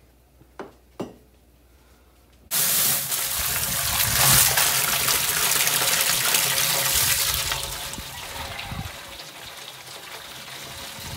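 Two light clicks, then water suddenly spraying hard from a hose about two and a half seconds in, washing leftover honey and wax out of a honey spinner's drum. The spray eases a little near the end.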